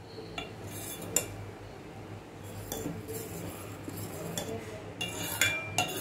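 Stainless-steel ladle stirring milky vermicelli payasam in a stainless-steel pot, clinking against the pot several times, with the clinks coming closer together and loudest near the end.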